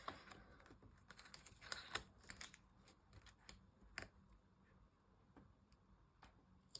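Faint, scattered small clicks and light rustles of hands handling paper and washi tape while the strip is repositioned on a journal page.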